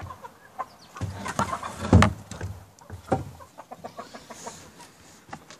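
Chickens clucking in short calls while a wooden coop door is scraped and knocked open, loudest about two seconds in, with another knock about three seconds in.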